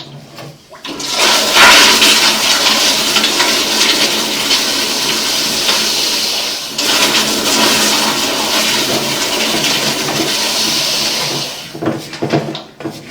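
Toilet flushing: a loud rush of water running for about ten seconds, breaking off briefly about halfway through, then tailing away near the end.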